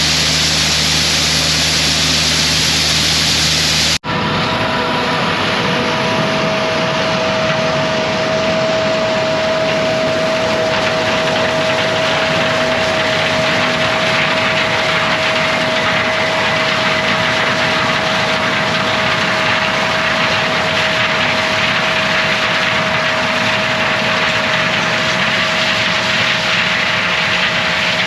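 Combine harvester running steadily. About four seconds in, the sound cuts abruptly to a different steady machine drone with a constant whine over it.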